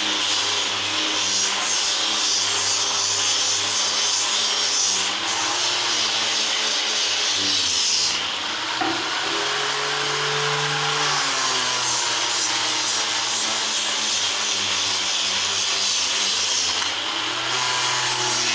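Electric power tool running steadily and working wood, a constant motor hum under a rubbing, rasping noise; the motor's pitch shifts briefly about halfway through.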